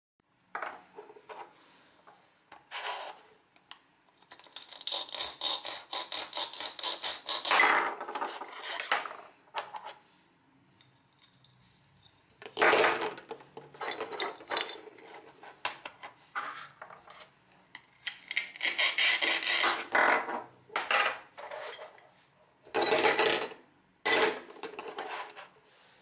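Hard plastic toy food pieces being handled: irregular knocks and clatter against a plastic cutting board and bowl, with rubbing and a few longer rasping stretches.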